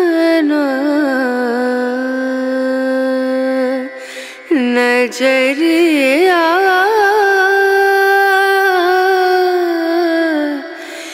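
Background music: a slow Hindi song, the voice holding long notes that waver in pitch, with a short break about four seconds in.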